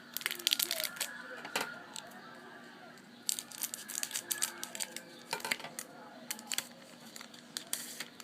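Harry Potter Memorable Moments trading card packs being torn open and the cards handled: short bursts of wrapper crinkling and tearing, in several spells.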